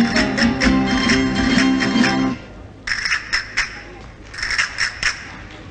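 Folk music: strummed guitar with held notes that stops abruptly about two seconds in. After a short pause, groups of sharp, bright percussion strokes start up in a steady rhythm.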